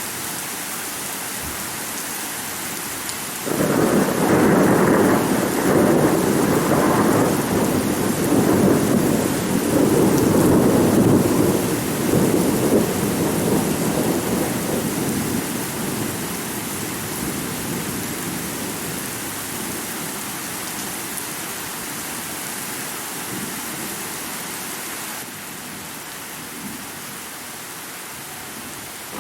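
Steady heavy rain with a sudden thunderclap about three and a half seconds in. The thunder rolls on loudly for several seconds and then slowly dies away. It has very little deep bass.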